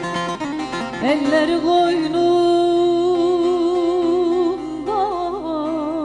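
Background music: quick plucked-string notes, then about a second in a note slides up and is held long with vibrato, followed by a wavering ornamented melody line near the end.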